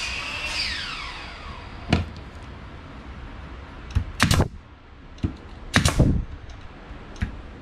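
Pneumatic 18-gauge brad nailer firing brads into wooden fence boards: several sharp shots, the heaviest about four and six seconds in, with lighter knocks in between. A high whine falls away over the first second or two.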